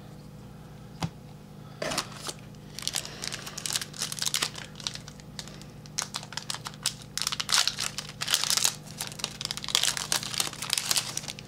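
A trading-card pack's wrapper crinkling as it is handled and opened, with irregular clicks of cards being shuffled. The crackling is loudest in the second half.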